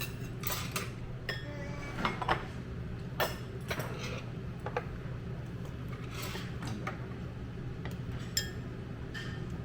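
Eating utensils clinking and tapping against dishes at a meal table: a scattered series of sharp clicks and short ringing clinks over a steady low background hum.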